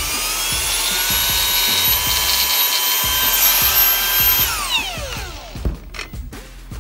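Cordless angle grinder running at full speed with a steady high whine. About four and a half seconds in it is switched off and its pitch falls as it spins down. A few clicks follow.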